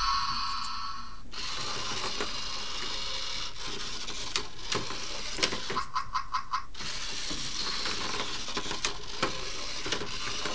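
Zhu Zhu Pets robotic hamster toy running around its plastic playset track: its small motor whirring, with clicks and knocks as it bumps along the plastic walls. A steady electronic tone from the toy stops about a second in, and a quick run of clicks comes about six seconds in.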